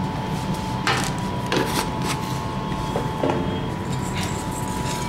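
Wire whisk scraping and knocking against a stainless steel bowl of mashed potato in a few separate strokes, over a steady hum.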